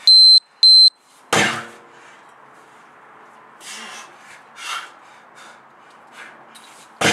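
Two short, loud, high electronic beeps about half a second apart. Then a 34 kg sledgehammer slams down onto a large rubber tyre about a second and a half in, and again near the end.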